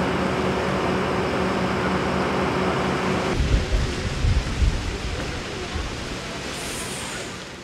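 Steady rushing roar of a wildfire, with a steady motor hum under it for the first three seconds. After that the hum stops and low rumbling gusts from the flames come through, and the sound fades out near the end.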